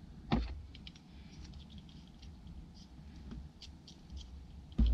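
Light handling clicks and a knock as a hand-held multi-cut tool is picked up and set on a thin wooden coffee stirring stick, then a sharp crack near the end as the tool's blades cut through the wood.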